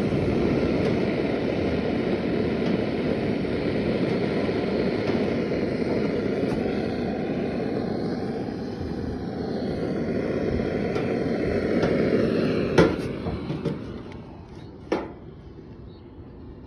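Steady roaring hiss of a gas-heated soldering iron's burner during soldering of a zinc gutter seam, fading away near the end. Two sharp knocks come in that fading part.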